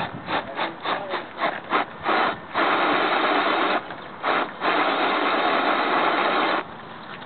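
Radio-controlled rock crawler's electric motor and geared drivetrain whirring in quick throttle blips, about seven in the first two seconds, then a longer push of about a second, two more blips and a push of about two seconds that cuts off suddenly, as it works its tyres against the rock.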